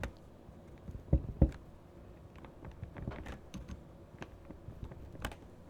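Ajazz AK820 Pro mechanical keyboard pressed down hard: faint scattered clicks and two soft knocks a little after a second in, almost no sound, no creaking.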